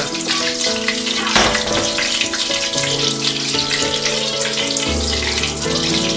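Butter sizzling with fine crackles in a steel frying pan with a sprig of rosemary, over soft background music of held notes that change every couple of seconds.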